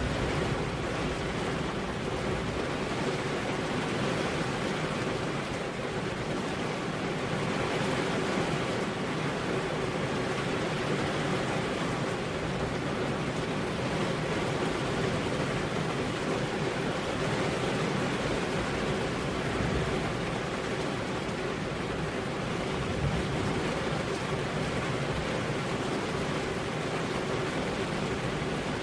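Steady rain, an even rushing hiss that holds without a break.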